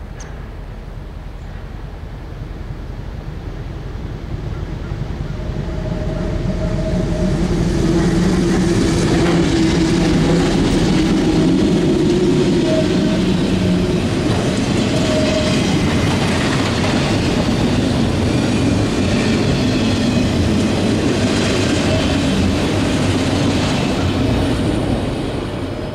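CSX ST70AH diesel-electric locomotive approaching and passing, its engine drone growing louder, then giving way to the rolling clatter of autorack cars on the rails. The sound fades near the end as the train goes by.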